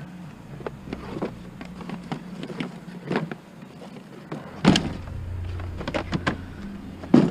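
Knocks and clunks of discarded household items being picked up and handled, with a louder thud just past halfway and another near the end, over a steady low hum.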